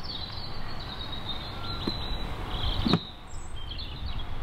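Small birds chirping over steady outdoor background noise, with a sharp knock about three seconds in.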